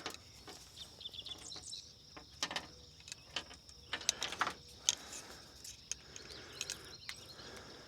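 Scattered light knocks and clicks of fishing gear being handled, over a steady insect hum and a few short bird chirps in the first couple of seconds.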